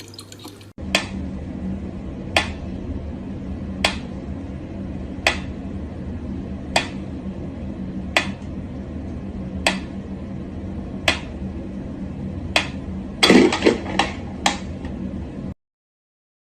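Sharp clicks about once every second and a half over a steady low hum, then a quick run of louder clicks near the end before the sound cuts off.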